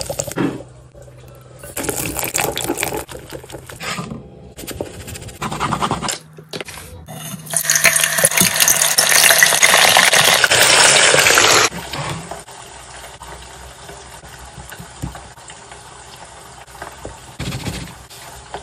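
Batter being made, with liquid poured onto flour in a glass bowl and mixed, followed by potato chips deep-frying in hot oil. The frying is a loud, steady sizzle for about four seconds in the middle that cuts off suddenly, leaving a quieter hiss.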